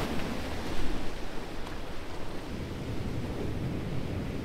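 Ocean surf surging steadily through a rocky shoreline channel, with some wind rumbling on the microphone.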